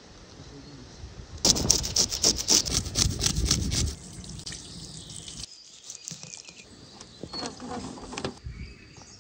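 Water from a hose splashing onto a large whole fish on a wooden board as it is rinsed, loudest for a couple of seconds early on. Near the end, a few light clicks and rattles of a wire mesh grill basket being closed around the fish.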